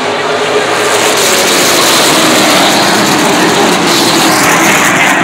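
A field of short-track race cars running hard at speed, many engines sounding together in a loud, steady blare, their notes drifting up and down as the cars pass.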